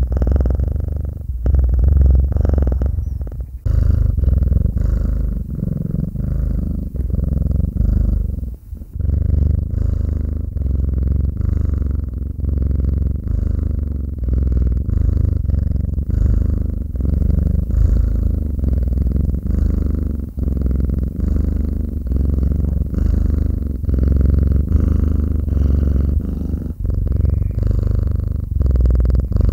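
Devon Rex cat purring close to the microphone: a steady, low purr that swells and eases with each breath, with a brief break about eight seconds in.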